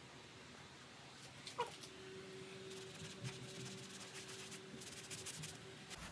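Cotton pad rubbing on textured silk wallpaper, faint scrubbing strokes as a cosmetic is worked into an oily stain, with one short squeak about one and a half seconds in.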